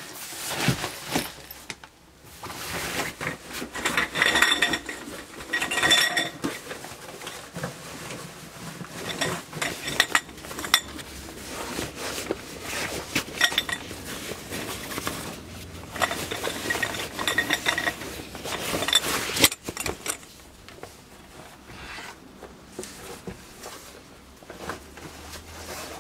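Metal items clinking and clattering as they are handled, with short ringing tones; the clinks thin out near the end.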